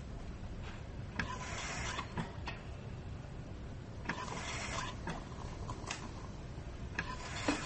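Operating-theatre sound effects: a short hiss repeating about every three seconds, with faint clicks and a low background rumble.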